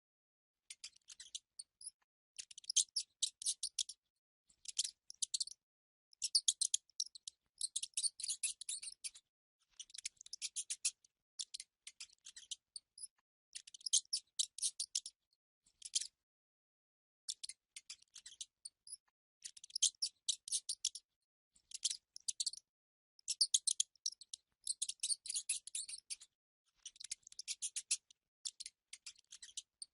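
Mice squeaking: rapid, high-pitched chittering in bursts of about a second, broken by short silences.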